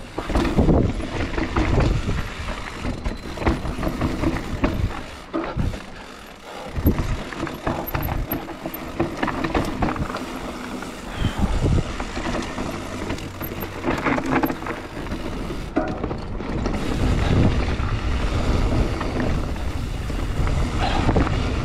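Mountain bike riding down a bike-park trail: tyres rolling over dirt and gravel, with a constant clatter of knocks and rattles from the bike over the bumps, and wind noise on the microphone.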